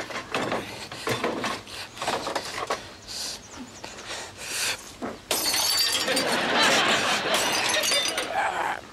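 Car headlight glass shattering and breaking out of its housing: a sudden crash about five seconds in that runs on for about three seconds, after a run of knocks and rattles from working at the car's front end.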